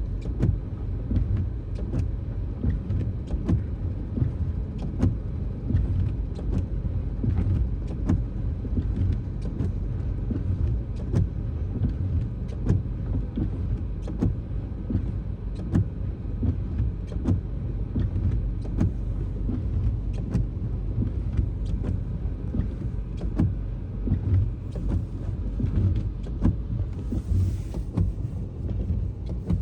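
Steady low rumble of a car driving on a snow-covered road, heard from inside the cabin, with frequent small ticks and knocks.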